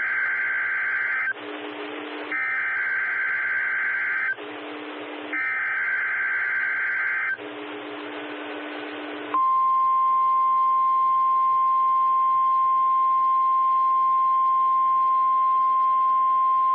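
NOAA Weather Radio broadcasting an Emergency Alert System test. First come the end of one burst and two more bursts of SAME digital header data: a buzzy two-tone screech, each burst about two seconds long, with a second of static hiss between them. About nine seconds in, the steady single-pitched 1050 Hz warning alarm tone starts and holds.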